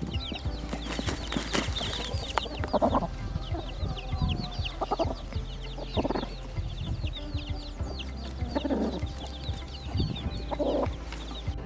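Chickens: a steady stream of high, short, falling peeps, typical of chicks, with a lower cluck-like call about every two seconds. The peeping cuts off suddenly near the end.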